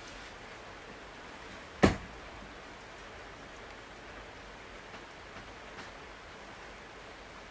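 Steady hiss of falling rain, with one sharp, loud click about two seconds in and a few faint ticks later.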